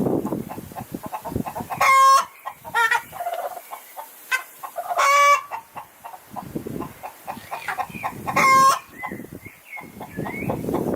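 Chickens clucking and cackling, with three loud, drawn-out squawks about three seconds apart.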